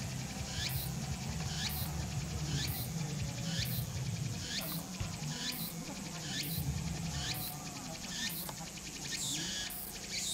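Cicadas calling in a repeated pulsing phrase, about one pulse a second, each with a short glide in pitch. A steady low rumble runs underneath.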